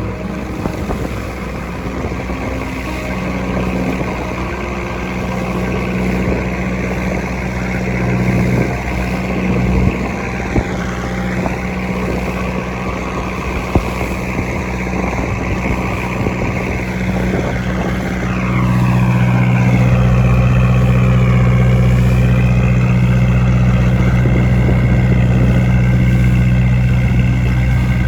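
The engine of a wooden passenger boat runs steadily under way, with a noisy wash over it. About two-thirds of the way in, it grows louder and the drone deepens and strengthens.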